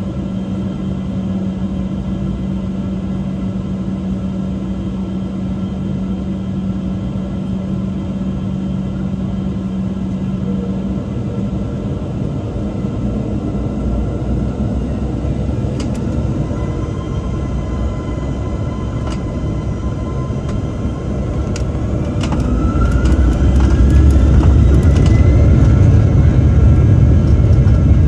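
Jet engines of an Embraer E195 heard from inside the cabin: a steady engine hum at idle, then about three-quarters of the way through a rising whine and a growing, louder rumble as the engines spool up and the aircraft starts to move.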